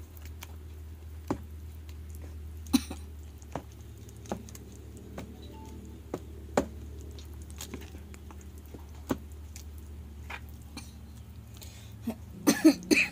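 A spoon stirring thick banana cake batter in a bowl, knocking lightly against the bowl every second or so, with a quick run of louder knocks near the end. A steady low hum runs underneath.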